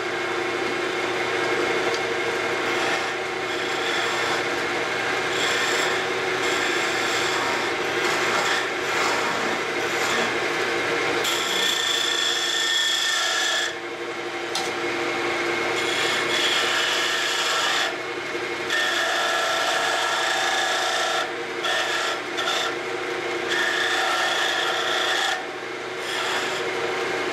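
Wood lathe running with a steady motor hum while a hand-held skew chisel cuts a thin spinning walnut spindle. The cutting makes a continuous rasping sound that breaks off briefly several times as the tool is lifted and set again.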